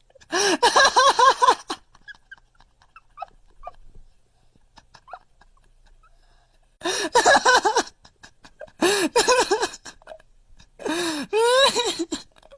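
Four loud bursts of pulsing vocal sounds, each about a second long, with pitch wobbling up and down several times a second.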